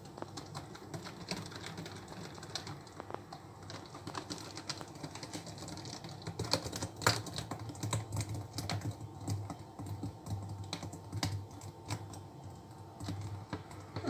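Thick blended citrus pulp pouring from a blender jug into the neck of a plastic water bottle: faint, irregular small clicks, taps and soft plops throughout.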